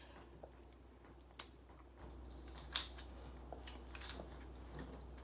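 Faint crinkling and clicking of a Hi-Chew candy packet and wrappers being opened and handled. The small sharp rustles come closer together from about two seconds in.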